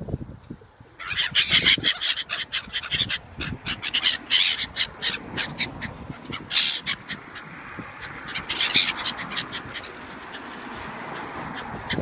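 A flock of black-headed gulls calling overhead: a jumble of many short, scratchy calls that starts about a second in, with loud peaks around four and a half, six and a half and nine seconds.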